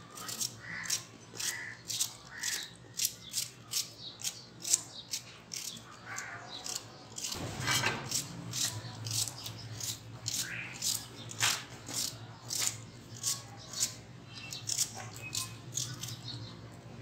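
A knife slicing through a raw onion held in the hand, crisp cuts about twice a second. A low steady hum comes in about seven seconds in.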